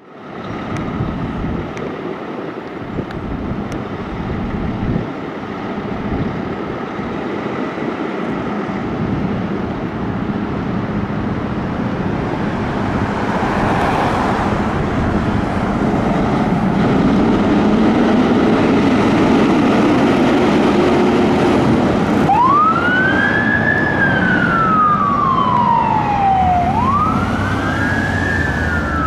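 Fire ladder truck's diesel engine running as it pulls out, with a brief hiss about halfway through. About three-quarters of the way in, its electronic siren starts wailing, with two rising-and-falling cycles.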